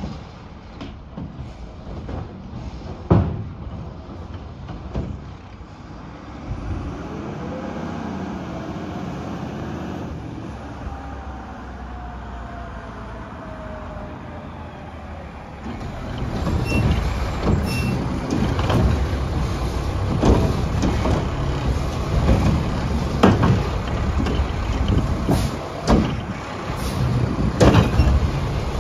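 Mack LR garbage truck with a Heil Odyssey body and Curotto Can at work. A few knocks come early, then the engine revs up and slowly winds down. From about halfway, a louder stretch of repeated clanks and bangs follows, typical of a cart being gripped and dumped.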